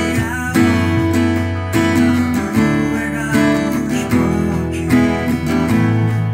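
Acoustic guitar strummed in a steady rhythm, changing chord every second or so.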